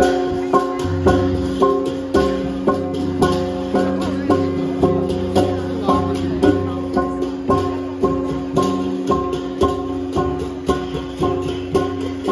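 Procession music of struck gongs and a drum in a steady beat of about two strokes a second. Each stroke rings on in sustained metallic tones, and a low drum joins about a second in.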